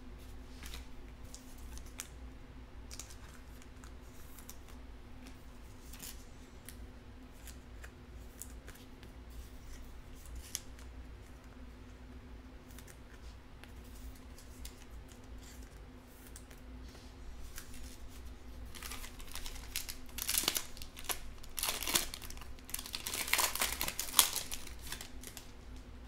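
A Panini Mosaic football card pack's foil wrapper being torn open and crinkled, in several loud crackling bursts over the last several seconds. Before that, faint clicks and shuffles of cards being handled.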